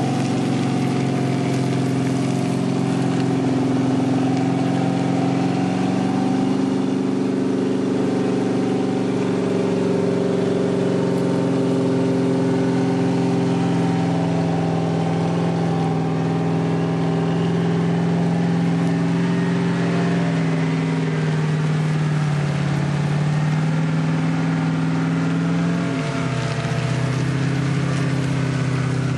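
4x4 engines running under load at steady, held revs as a Jeep tows a Toyota up a muddy slope on a strap. The engine pitch wavers slightly and dips briefly near the end.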